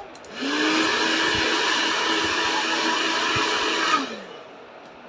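Hand-held hair dryer switched on and blowing steadily for about three and a half seconds, its motor whine rising to speed at the start and falling away when it is switched off near the end.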